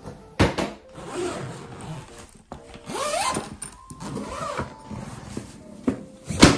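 A hard-shell suitcase is laid over onto a tiled floor with a knock. Its zipper is then pulled open around the case in several long runs. A louder knock of the shell near the end comes as the lid is opened.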